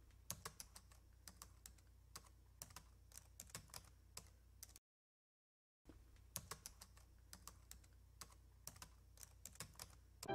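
Computer keyboard typing sound effect: quick, irregular key clicks, faint, with about a second of dead silence near the middle.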